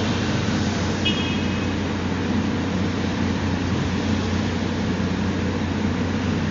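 Steady low rumble of vehicles and test machinery in a vehicle inspection hall, with a brief high tone about a second in.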